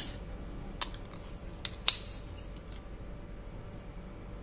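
A metal spoon clinking against glassware a few times, each clink ringing briefly, the loudest a little under two seconds in, as rock salt is spooned from a glass jar into a glass bowl of curd.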